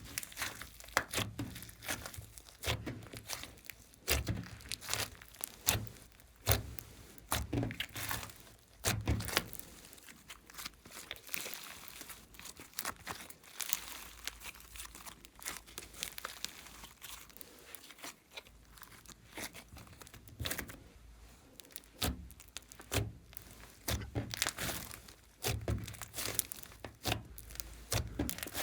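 Hands squishing and stretching glossy slime: quick, irregular sticky crackles and pops, dense for the first third and again near the end, sparser in between.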